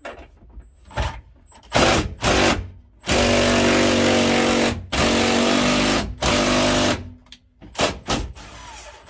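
Cordless impact driver run in a few short blips, then three longer runs, then two brief blips near the end. It is turning a quarter-inch bolt and nut against washers to squeeze a rivet nut and set it in the sheet metal.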